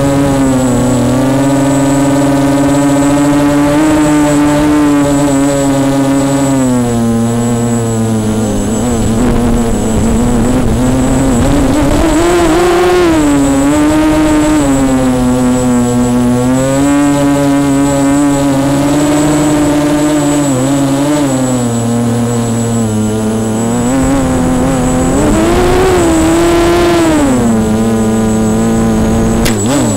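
The Walkera 250 racing quadcopter's brushless motors and propellers whine loudly, heard from the drone's own camera, their pitch rising and falling with the throttle. A thin steady high tone sits over the whine.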